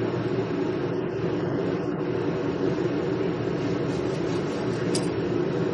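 Steady mechanical drone, even in level, with a faint click about five seconds in.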